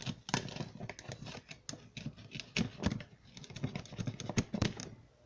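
Rapid, irregular clicking and tapping of plastic toy kitchen pieces and Play-Doh tools being handled, with light scraping as Play-Doh 'grease' is spread on a toy pan.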